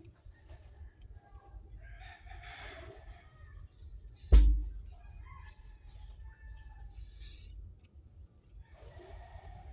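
Small birds chirping, short high chirps repeating about twice a second, with a single loud, sharp thump about four and a half seconds in and some rustling.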